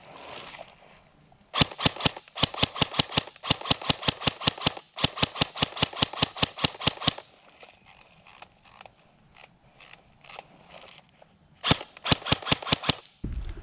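Airsoft gun firing rapid strings of shots, several sharp cracks a second. A long string with short breaks starts about a second and a half in, and another short burst comes near the end.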